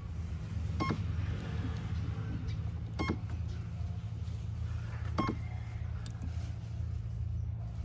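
Three short electronic beeps, about two seconds apart, from the boat's brushless motor speed controller, over a steady low hum.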